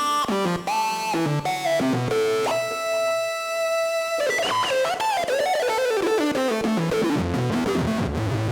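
Roland Zenology Pro's JD-800 software synthesizer playing a plucked, guitar-like patch: quick runs of notes, one long held note about two and a half seconds in, then a falling run with pitch bends.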